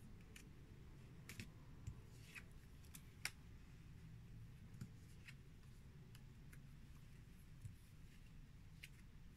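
Near silence broken by faint, irregular clicks and taps of playing cards being flipped and set down, the sharpest about three seconds in.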